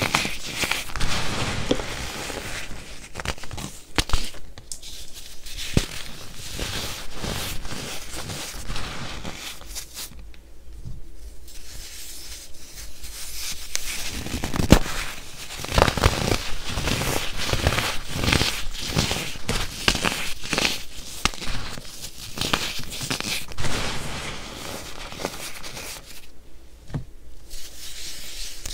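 Hands crushing and crumbling chunks of packed baking soda, a dense crunchy crackling with two short lulls.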